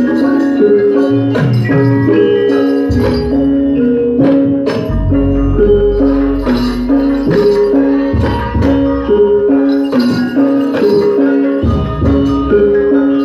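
Javanese gamelan music for a lengger dance: metallophones repeat a melodic pattern over deep hand-drum strokes, with a jingling percussion layer on top.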